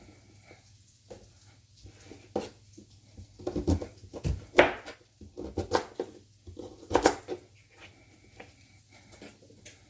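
Kitchen knife dicing raw sweet potato on a cutting board: irregular knocks and clicks of the blade hitting the board, loudest about four and a half and seven seconds in.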